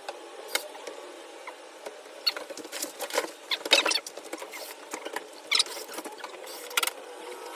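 Sped-up sounds of a sheetrock patch being fitted and fastened into a ceiling hole: scattered sharp clicks and knocks over a light hiss, the loudest a little after three seconds in and just before four.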